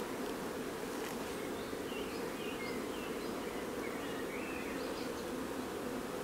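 Honeybees buzzing: a steady, even hum of bees.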